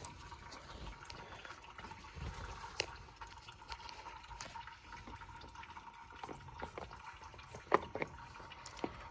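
Warm engine oil trickling and dripping from the Massey Ferguson 1130's just-removed oil filter and filter mount into a drain bucket, with a few clicks and knocks, the sharpest one late on.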